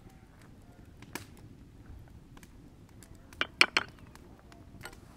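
Metal spoon scraping and clinking against metal as tomato sauce is spread in a metal pan and scooped from a tin can. There is a light clink about a second in, a quick run of three sharp clinks about three and a half seconds in, and one more near the end.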